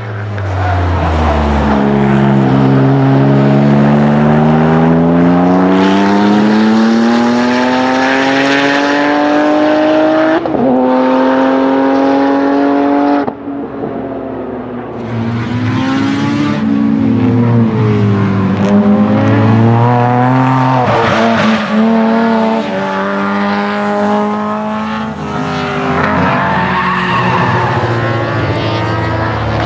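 Twin-turbo flat-six of a tuned Porsche 997 GT2 pulling hard on track. Its pitch climbs steadily for about nine seconds, shifts up and climbs again, then drops as the driver lifts off. After that, engine notes from more than one car rise and fall in shorter runs.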